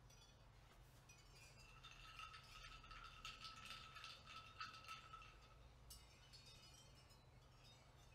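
Near silence with faint high tinkling, like small chimes or light clinks, strongest in the middle.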